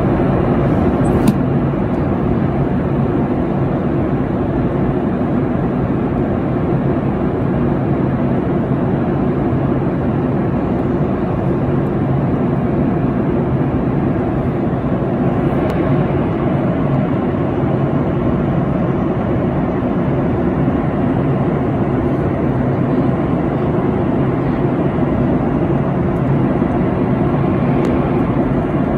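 Steady drone inside a jet airliner's cabin in flight: engine and rushing-air noise, even throughout, with a faint low hum. A small click about a second in.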